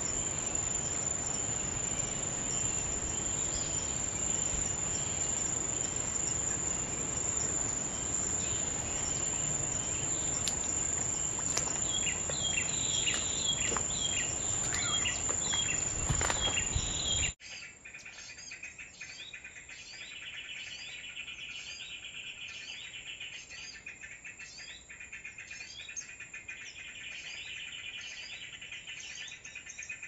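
A steady high insect drone with scattered bird chirps over outdoor background noise. A little past halfway it cuts abruptly to rapid, regularly repeated small-bird chirps over a buzzing insect chorus.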